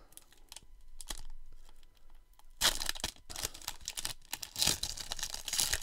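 Baseball card pack wrapper being crinkled and torn at by hand: the wrapper is hard to open. Scattered small crackles at first, then louder crinkling and tearing from about two and a half seconds in.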